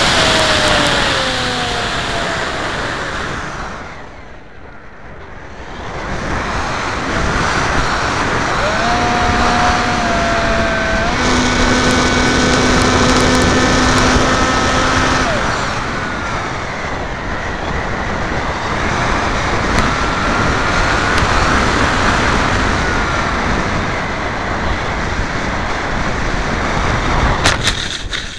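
Multiplex FunJet electric RC jet in flight, heard from aboard: heavy wind rush on the microphone with the brushless motor and propeller whining, its pitch gliding and holding as the throttle changes. The sound dips for a couple of seconds about four seconds in. Near the end a few sharp rattles come as the plane comes down in grass, then it drops away.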